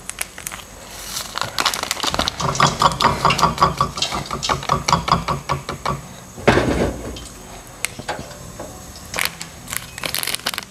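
Plastic coffee sachets crinkling and being torn open and shaken out over a cup, in quick runs of small crackles. A denser rhythmic stretch of crackling falls in the middle, and one louder rasp comes about six and a half seconds in.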